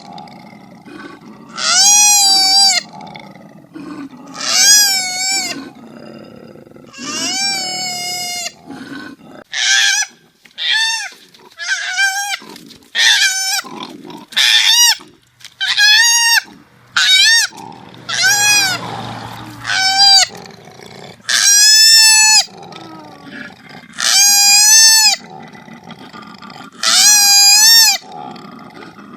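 A koala calling over and over: a string of about fifteen short, high, wavering squealing calls, each under a second, with a quieter low grunting between them.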